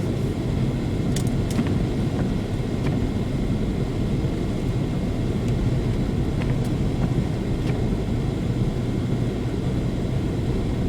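Steady road rumble inside a BMW's cabin as it drives on a slushy, snow-covered road: tyres running through slush under the engine's hum, with a few faint clicks.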